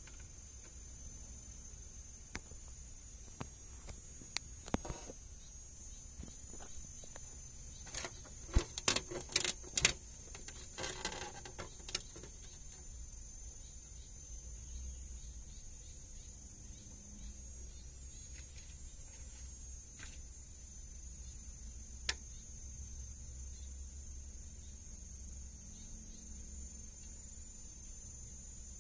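Insects chirring steadily at a high pitch, with a few sharp clicks and knocks, most of them in a quick cluster about eight to twelve seconds in.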